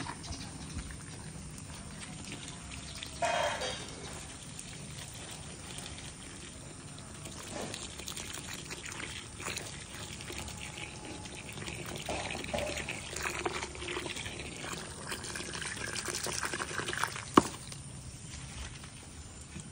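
Water trickling and running, with a short call about three seconds in and a sharp knock near the end.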